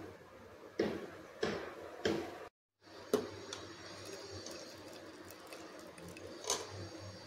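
A metal ladle knocking and scraping against a metal cooking pot while scooping parboiled basmati rice out of its water. Three sharp knocks come in the first two seconds; the sound cuts out briefly, then come lighter clicks and one more knock near the end, over a low steady hum.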